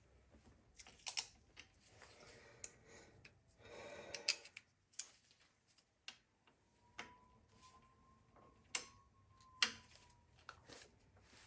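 Scattered light metal clicks and taps, with a short scraping stretch about four seconds in, as hand tools pry under a tab on the parts of a Chevy 350 V8 engine being torn down.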